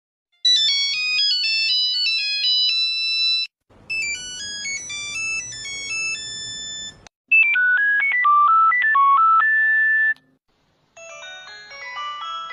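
Old Nokia mobile phone ringtones played one after another: four short electronic melodies of a few seconds each, separated by brief gaps.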